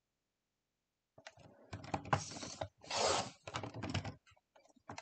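Sliding-blade paper trimmer cutting a sheet of designer paper: a run of clicks and rattles from about a second in, with a short slicing swish near the middle.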